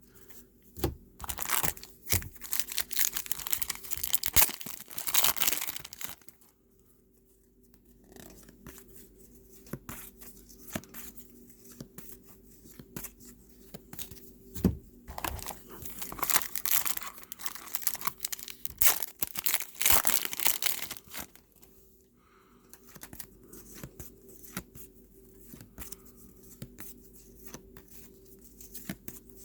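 Trading-card pack wrappers being torn open and crinkled, in two louder spells, with quieter handling and flicking of cards between them.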